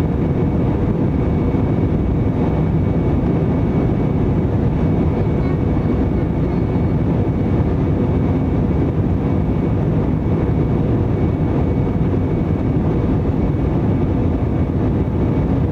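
Steady cabin noise inside an Airbus A321 airliner descending on approach: a low engine and airflow rumble with a faint steady whine over it.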